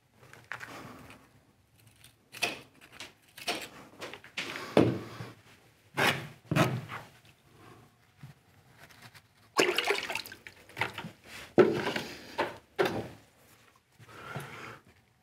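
Thin brick-effect facing slips being set by hand and pressed into combed adhesive on a wall: a string of irregular short handling knocks, with the loudest cluster about ten seconds in.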